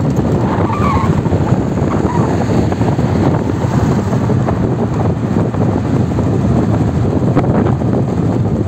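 Steady rush of wind on the microphone of a moving motorbike, mixed with the running of passing road traffic.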